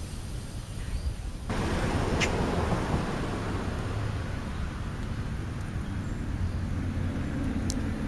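A motor's steady low rumble and hiss sets in suddenly about a second and a half in and keeps running, with a low hum. Two brief sharp clicks come about two seconds in and near the end.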